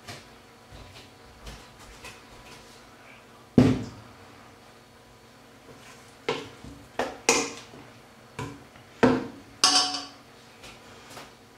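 A stainless-steel mixing bowl knocks down hard onto a wooden countertop about three and a half seconds in. From about six seconds it clatters through a quick run of sharp knocks against the counter and a spoon.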